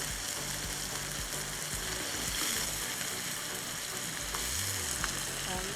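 Chicken pieces frying in oil in a pan, a steady sizzle.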